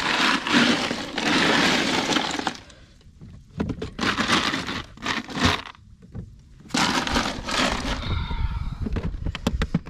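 Ice cubes clattering and crunching in a cooler as hands dig into the ice to bury a fish and shift plastic bottles, loud for the first couple of seconds and then in shorter bursts with pauses between.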